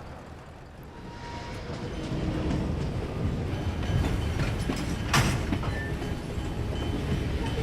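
Freight train rolling past: a steady low rumble of railroad cars on the rails that builds over the first couple of seconds, with a sharp metallic clank about five seconds in.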